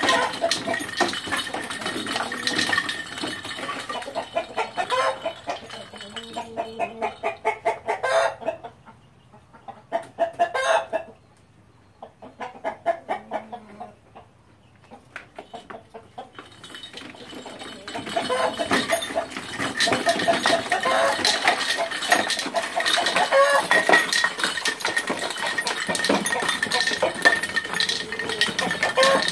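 A gamecock running in a spinning wire-mesh exercise wheel: rapid rattling and clicking of the wheel and its mesh, with the rooster clucking. The rattling thins out and goes quieter for several seconds in the middle, then picks up again and stays dense to the end.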